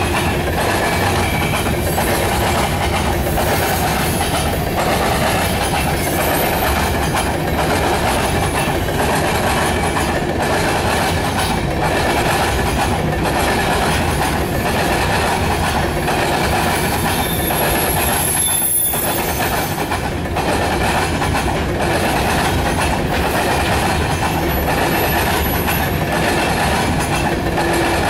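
Norfolk Southern covered hopper cars rolling past close by: a steady rumble with the wheels clattering over the rails, and a brief high-pitched wheel squeal now and then.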